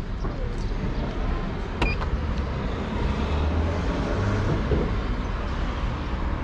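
Street traffic: a steady rumble of passing road vehicles, swelling a little about three to five seconds in, with one short sharp click about two seconds in.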